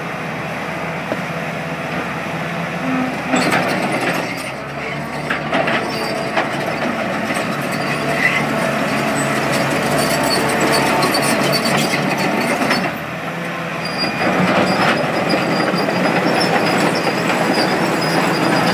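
Crawler loader's diesel engine working hard, sending up black exhaust smoke as the machine drives off, with its steel tracks clanking and knocking. High squeaks come in over the last few seconds.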